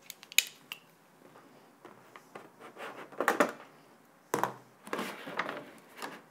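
Hands handling packaging: a sharp click just under half a second in, then several bursts of plastic rustling, scraping and crackling as a clear plastic cover is worked off the moulded tray holding an LED light panel.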